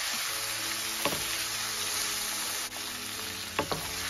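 Pasta and vegetables sizzling in a hot nonstick frying pan as they are stir-fried with a wooden spatula, with two short clacks of the spatula against the pan, about a second in and near the end.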